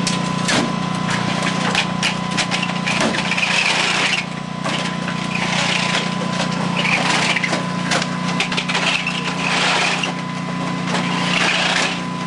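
Clattering knocks and scraping as a pit crew pulls battery packs out of an electric race car, coming in several rustling bursts over a steady low hum.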